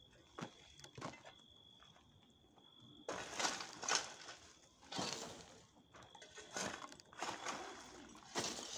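A long-handled digging tool striking and scraping into hard ground, crunching strokes about once a second, starting about three seconds in.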